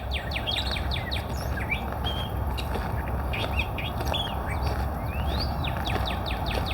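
Wild birds chirping and calling: a busy run of quick downward-sweeping chirps with a few rising whistles, over a steady low background noise.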